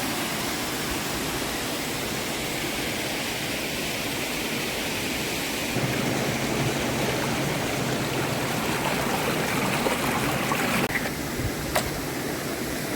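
Steady rushing of a waterfall's water pouring over rock, growing a little louder about six seconds in, with one brief click near the end.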